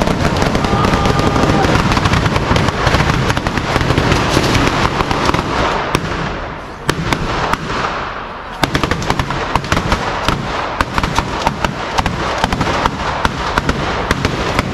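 A long run of firecrackers going off at the ignition of a Fallas monument: a dense, continuous crackle for about six seconds, then after a short lull a string of separate loud sharp bangs, several a second.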